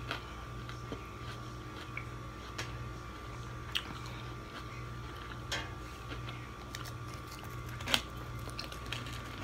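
Sour cream and onion ridged potato chips being bitten and chewed close up: a few short, sharp crunches spread over several seconds, the sharpest near the end, over a steady low hum.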